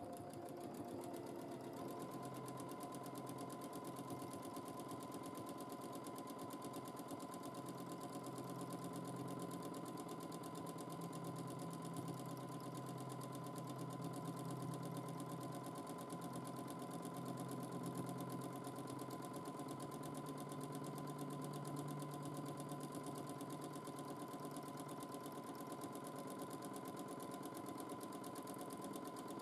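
Domestic sewing machine running continuously while free-motion quilting, the needle stitching rapidly over a steady motor whine. The motor's pitch rises and falls a little now and then as the stitching speed changes.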